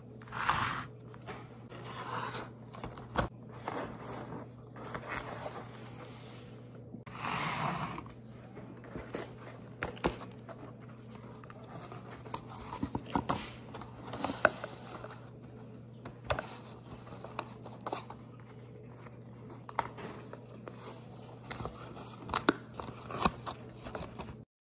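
Paper and cardboard fast-food packaging being handled and opened: soft rustling and crinkling with scattered light taps and clicks, over a faint steady hum.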